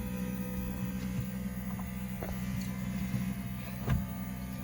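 A steady low hum with a few faint clicks, and a light knock near the end.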